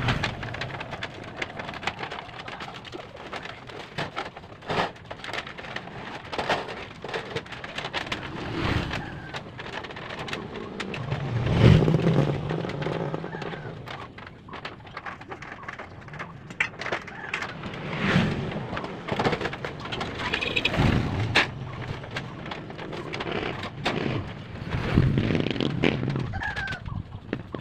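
Outdoor mix of scattered knocks and clatter, with motor vehicles passing several times and birds calling.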